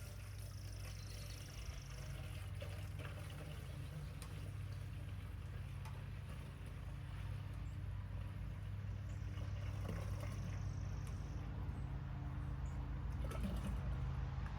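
White vinegar poured from a gallon jug into a container, a steady pouring and glugging that slowly grows louder as it fills, over a steady low rumble.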